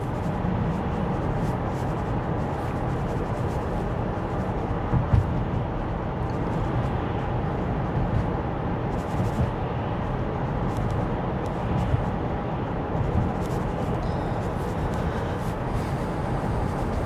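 Steady road and tyre noise heard inside the cabin of a Tesla Model Y electric SUV cruising, with no engine sound, and a few faint bumps.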